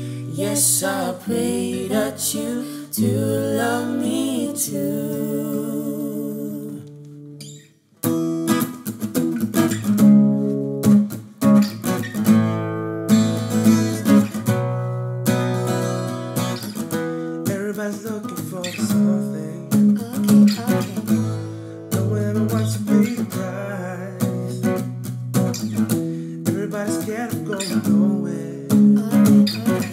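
Live acoustic guitar with singing. A sung phrase over held guitar chords fades out about seven seconds in. After a brief pause, a brisk, percussive strummed guitar pattern starts up.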